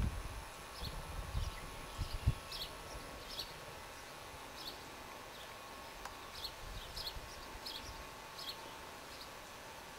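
Birds giving short, high chips that repeat irregularly, about one or two a second, over a faint steady background. A few low thumps come in the first two or three seconds, the loudest about two seconds in.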